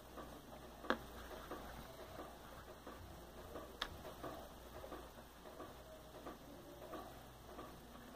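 Faint small clicks and ticks from handling a phone, with two sharper clicks about one and four seconds in. The second click is an iPhone 4 being set down on a laptop keyboard.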